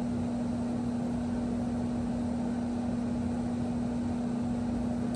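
A steady hum at one constant pitch over a faint even background noise, with no distinct knocks or clicks.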